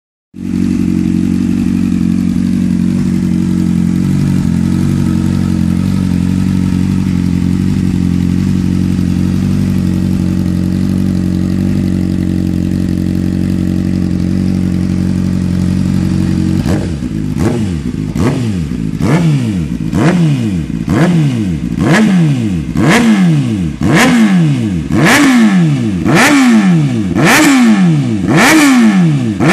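Honda CBR 600F inline-four motorcycle engine with a Hurricane Evolution aftermarket sport exhaust tip, idling steadily for about sixteen seconds and then revved loud in about a dozen short, sharp throttle blips, roughly one a second, the pitch falling back after each.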